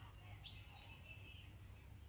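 Faint bird chirps: a short call about half a second in, followed by a thin trill, over a low steady hum.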